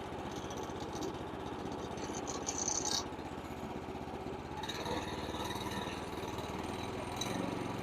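Gas lawn mower engine running steadily, warming up just after a choked start; its sound shifts a little about five seconds in.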